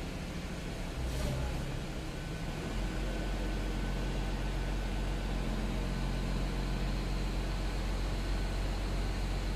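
Telescopic truck crane's diesel engine running steadily; about three seconds in its low rumble rises and holds at a higher level as the crane takes up the load.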